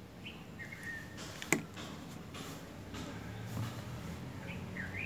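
Quiet handling of a plastic Fevicol PVA glue bottle as glue is squeezed out into a plastic cup: a few faint brief squeaks and one sharp tap about a second and a half in.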